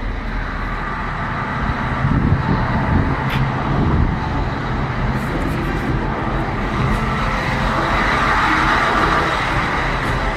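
Diesel engine of a CAT 775F off-highway dump truck running steadily at idle, with a rise in hissing noise in the later seconds.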